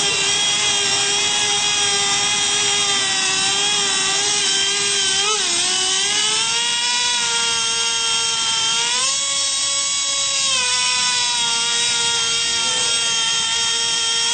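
Traxxas Revo RC truck's small nitro engine running at high revs: a steady, high-pitched whine that dips about five seconds in and climbs again around nine seconds.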